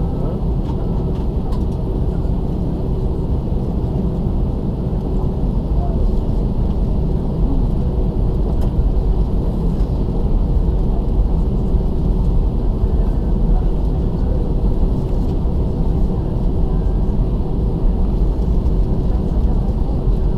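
Cabin noise of an Airbus A319 taxiing: the steady low rumble of its idling jet engines and the airliner rolling over the taxiway, with a faint steady hum.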